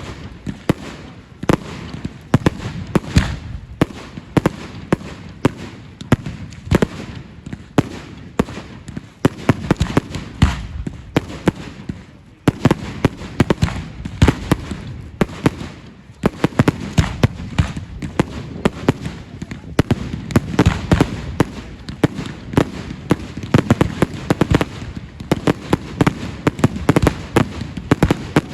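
Fireworks display going off in a rapid, near-continuous barrage of bangs and crackles, easing briefly about twelve seconds in and again about sixteen seconds in.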